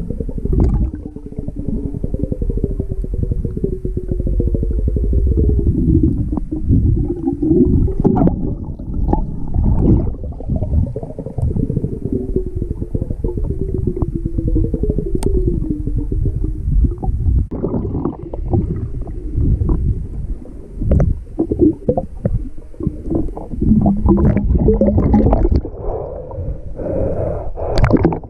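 Camera recording underwater: a continuous muffled low rumble of water movement, with scraping and knocks against the housing. Through the first half, wavering tones slide downward.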